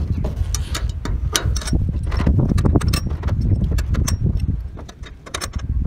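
Light metallic clicks and clinks of aluminium solar-panel mid clamps being handled and slotted onto mounting rails, with footsteps on the corrugated metal roof, over a steady low rumble.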